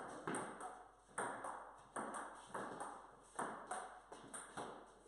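Table tennis rally: the celluloid ball clicks alternately off the paddles and the table, about three sharp clicks a second, each with a short echo.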